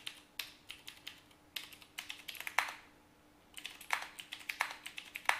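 Computer keyboard keystrokes in short quick bursts with brief pauses between, over a faint steady hum.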